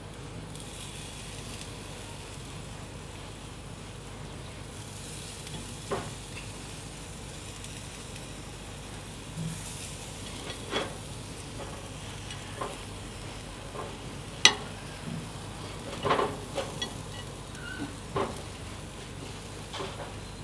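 Sausages sizzling on the hot grate of a gas grill as they are laid down one by one, with a steady hiss. Several sharp clicks and knocks of metal come in the second half, the loudest about two-thirds of the way through.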